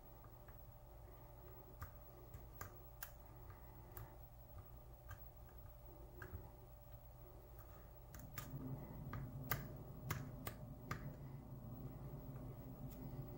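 Faint, irregular small metallic clicks of a hook pick probing the pin stacks of a brass pin-tumbler lock cylinder held under a tension wrench. The clicks come closer together after about eight seconds, when a low steady hum also comes in.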